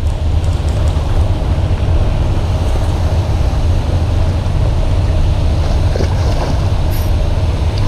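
Steady low machine drone under a constant wash of churning water, from fish-pond paddlewheel aerators running.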